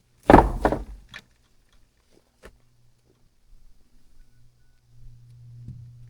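A loud clattering thunk lasting under a second, then a few lighter knocks, over a faint steady low hum.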